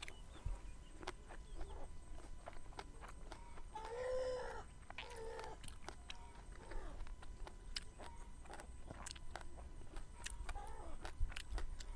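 Chickens clucking, with the loudest call, a short rising-and-falling one, about four seconds in and several shorter calls after it. Under them, close chewing and crunching of raw vegetables, a string of sharp clicks.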